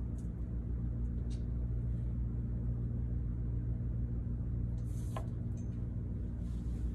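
Steady low hum of room noise, with a few faint, soft clicks and rustles from hands handling the IV tubing and alcohol pad, one about a second in and a couple about five seconds in.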